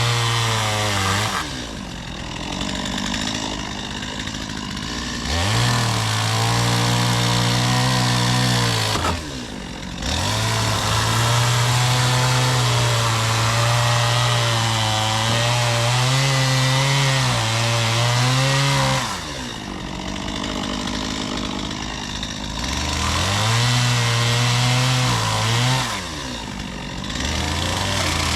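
Two-stroke chainsaw revving to full throttle and cutting wood, then dropping back to idle between cuts, several times over. The longest cut runs about nine seconds, with the engine pitch wavering as the chain works through the wood.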